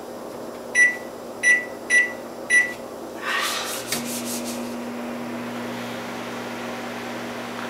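Microwave oven keypad beeping four times as the cooking time is entered, then the microwave starting up and running with a steady low hum. A brief rustle comes just before the hum begins.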